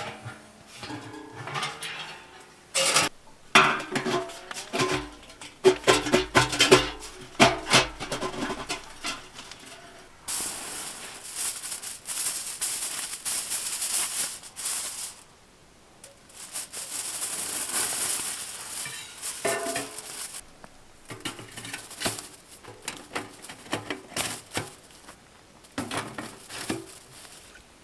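Sheet-metal stovepipe being handled and fitted: sharp clanks and scrapes with a ringing metal tone. In the middle come two long stretches of crinkling and rustling, as of foil and plastic film being worked.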